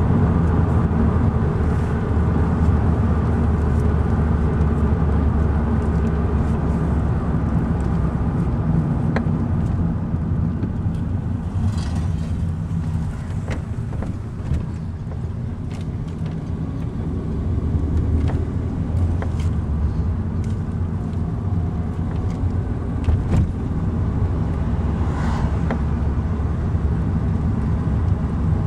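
Taxi's cabin noise while driving on a highway: a steady low rumble of engine and tyres on the road, dipping slightly about halfway through, with a few faint clicks.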